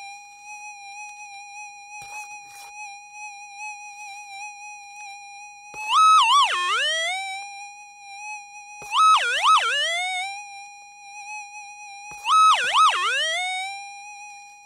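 Minelab SDC 2300 metal detector holding a steady threshold tone while a scoop of dirt is waved over its coil. Three times the tone jumps higher and warbles down and up for about a second: the detector's signal on a metal target in the scoop.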